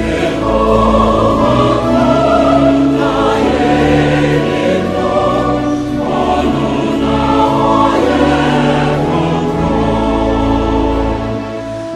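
Gospel choir singing with instrumental backing, in long held notes.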